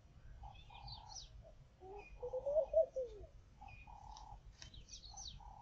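Doves cooing in a repeating phrase of short low notes, with a louder, wavering call about two seconds in. Quick high chirps from smaller birds come in twice.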